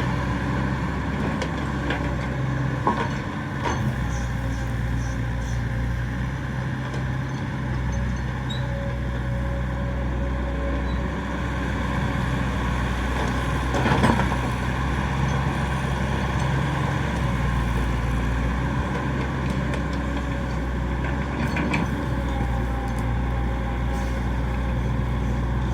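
Excavator diesel engine running steadily, with scattered sharp knocks and clanks from the working machine and one louder knock about halfway through.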